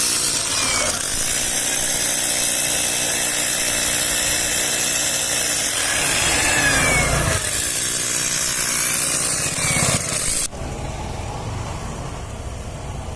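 A motor-driven machine running steadily with a strong hiss, its pitch sweeping down briefly about six to seven seconds in. About ten and a half seconds in it cuts off abruptly to a quieter, low, steady rumble.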